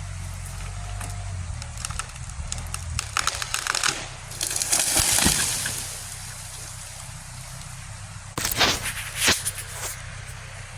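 Dead pine tree snapping and cracking as a tractor pulls it over: a run of sharp cracks, a loud rushing crash about four seconds in as it comes down through the branches, then more sharp cracks near the end. A tractor engine runs low and steady underneath.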